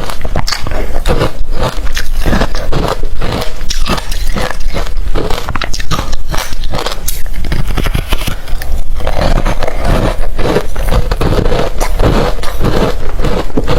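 Close-miked biting and crunching of hard refrozen crushed ice in the mouth: a continuous run of sharp crunches, several a second.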